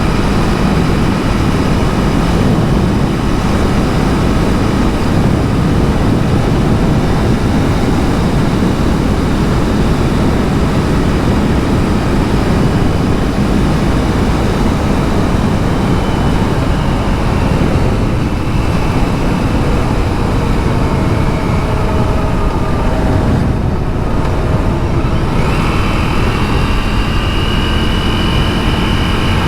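KTM 390 Duke's single-cylinder engine running under way, heard beneath heavy wind rush on the action camera's microphone. The engine note shifts in pitch over the last few seconds.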